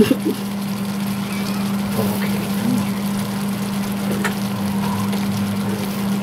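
A steady low mechanical hum with a faint rushing noise under it, with a sharp knock at the start as a plate is set down, and a few light clicks of dishes.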